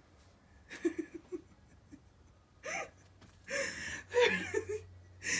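A person's stifled laughter with gasps, in short breathy bursts about a second in and again from under three seconds on.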